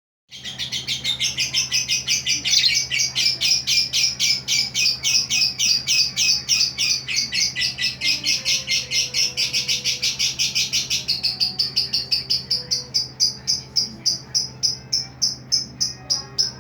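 A female songbird calling in a rapid, even series of short high chirps, about six a second, for the whole stretch.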